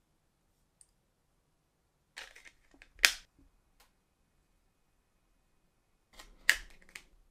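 Samsung Galaxy Z Flip 5 in a clear case folded shut by hand: brief rubbing and handling, then a sharp snap of the hinge closing about three seconds in. A second brief bit of handling ends in another sharp click near the end.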